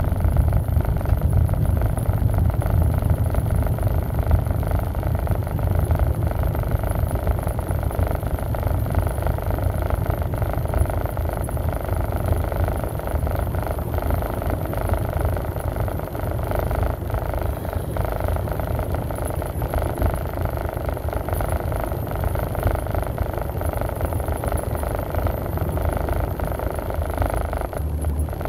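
Steady road and engine noise inside the cabin of a vehicle driving at highway speed: a constant low rumble with tyre hiss over it.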